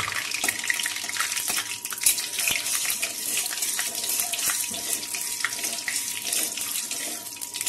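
Whole spices (dried red chillies, bay leaves, cinnamon, cloves and cardamom) sizzling and crackling in hot oil and ghee in a kadai, with a metal spatula stirring and scraping against the pan.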